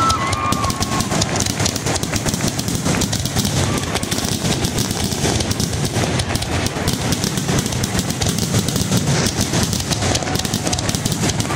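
Aerial fireworks in a dense, continuous barrage: an unbroken rapid clatter of bangs and crackles with no pause.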